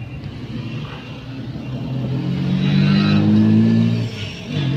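A vehicle engine accelerating, heard from inside a car. From about halfway its note rises in pitch and grows louder, then drops away briefly near the end.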